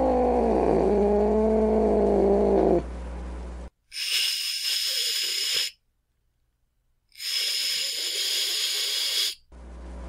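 A domestic cat's low, drawn-out yowl that sinks in pitch and breaks off after about three seconds, followed by two long hisses, each about two seconds, with a short silence between them: an angry, defensive cat.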